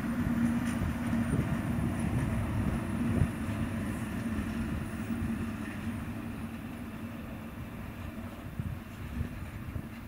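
Electric locomotive running past and away on the rails. It has a steady drone over a low rumble, and both fade as it recedes.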